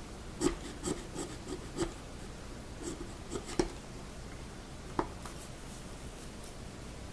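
Hand chisel paring shavings off the hardwood heel of a mandolin neck, which the restorer takes for hard rock maple: a run of short scraping strokes over the first four seconds, then one more about five seconds in.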